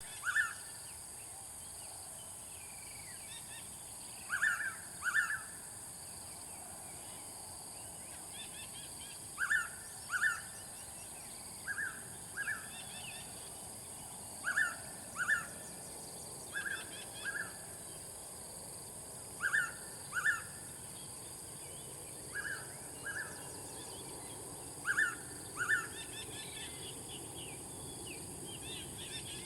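Blue-winged pitta calling, a loud two-note whistle repeated in pairs every two to five seconds. Under it runs a steady high hiss with faint chirps from other birds.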